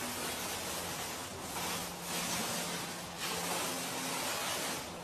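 Paint roller on an extension pole rolling up and down a wall: a hissing rub that swells and dips with each stroke.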